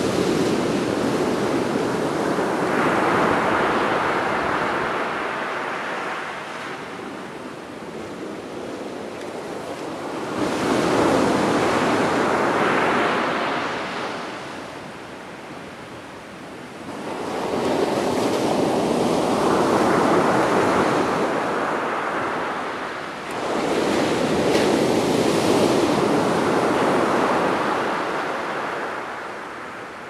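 Rough surf breaking on a sandy beach, a rushing wash of waves that swells and fades in slow surges every five to eight seconds.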